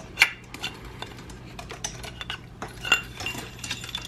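Metal D5 pump-housing parts clicking and clinking as they are handled and set down on a table: a string of light clicks and knocks, the sharpest just after the start, with a brief metallic ring about three seconds in.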